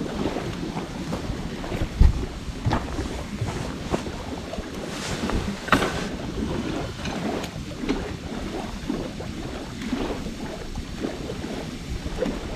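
Wood campfire crackling, with irregular sharp pops, one strong one just before 6 seconds in, over a steady rush of wind on the microphone.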